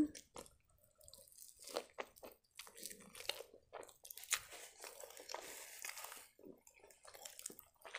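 Chewing and crunching a bite of a pan-fried blin with a crisp crust, rolled around chicken filling and dipped in sour cream: irregular soft crunches.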